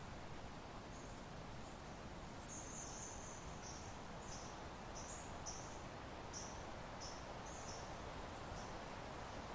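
Soft, steady wind noise, with a run of short, high-pitched chirps, about two a second, starting about two seconds in and stopping near the end.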